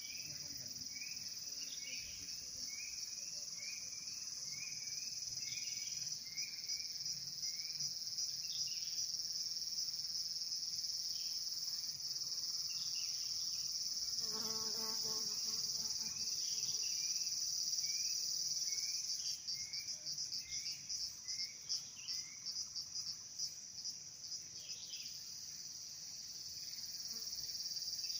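Insects calling in a steady, high-pitched chorus. In the first six seconds a second caller repeats short rising chirps about twice a second. A brief lower call comes about halfway through, and for a few seconds after that the high chorus breaks into rapid pulses.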